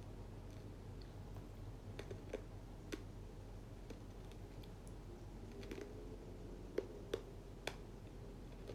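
Faint, irregular clicks and taps of typing, with three sharper taps in quick succession about two-thirds of the way through, over a low steady hum.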